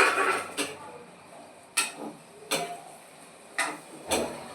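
A metal spoon clanking and tapping against a cooking pan while stirring vegetables: one louder clatter at the start, then four or five separate sharp taps about a second apart.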